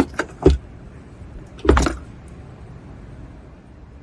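Two knocks of a 12-volt car battery being set down into its tray: a sharp one about half a second in, then a louder clunk near two seconds.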